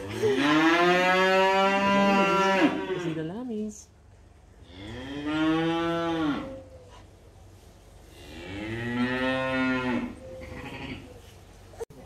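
Cattle mooing: three long, loud moos about two seconds apart, each rising and then falling in pitch.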